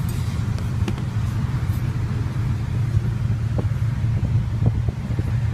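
Steady low rumble of a vehicle engine running, with a few faint clicks over it.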